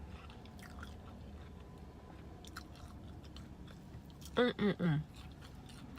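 Close-up chewing of food, with small wet mouth clicks. About four and a half seconds in comes a short three-part vocal sound, a murmur or hum.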